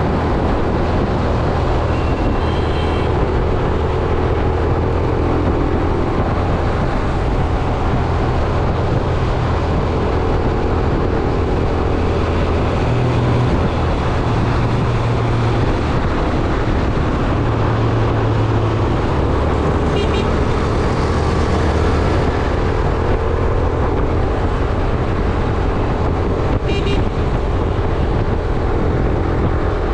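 Yamaha YBR 125G's single-cylinder four-stroke engine running steadily in traffic, with wind on the microphone. Vehicle horns honk briefly three times: a few seconds in, about two-thirds through, and near the end.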